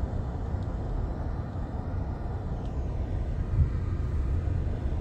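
Low, steady rumble of a car driving slowly, with engine and road noise heard from inside the cabin.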